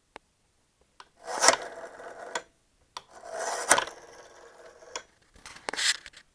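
Classic black rotary telephone's dial wound round and let go three times, each a rasping whir as the dial spins back, set off by sharp clicks, as digits of a phone number are dialled.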